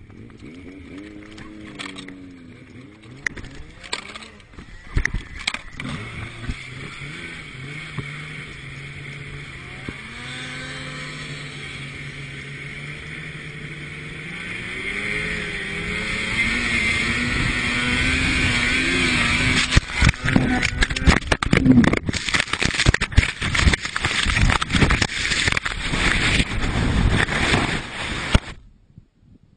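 Snowmobile engine running hard, its pitch rising and falling under the throttle, with a rushing noise that grows loud about halfway through. From about two-thirds of the way in come many thumps and knocks, and then the sound cuts off abruptly near the end.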